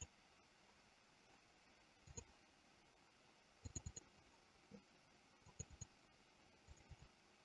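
Faint computer mouse clicks over near-silent room tone, a dozen or so in small groups, some in quick pairs like double-clicks.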